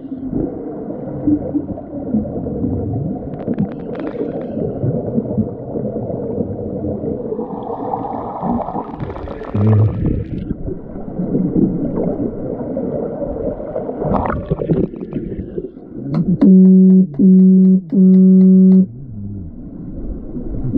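Underwater pool ambience heard through a submerged camera: a steady churning rumble of water, bubbles and kicking fins. Near the end, three loud, even blasts of an underwater signal horn ring out, the referee's signal in underwater rugby.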